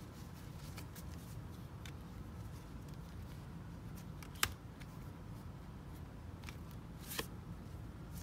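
Trading cards handled on a tabletop: a few light clicks and taps, a sharper click about halfway through and another near the end, over a low steady room hum.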